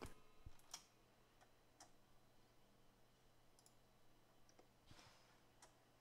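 Near silence with a handful of faint, short computer mouse clicks.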